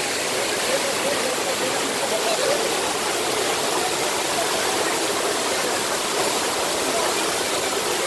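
Pool waterfall pouring over rocks into the water: a steady rush of falling, splashing water, with faint voices under it.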